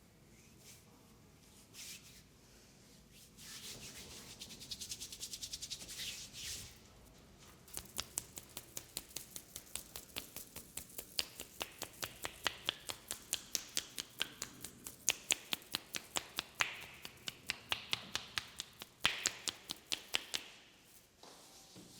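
Hands massaging: a few seconds of rubbing, then a long, even run of sharp slapping strokes, about three a second, that stops shortly before the end.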